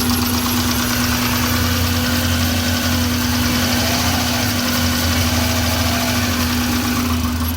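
2001 Subaru Impreza's 2.2-litre flat-four engine idling steadily while misfiring on cylinders 1 and 3 (codes P0301 and P0303).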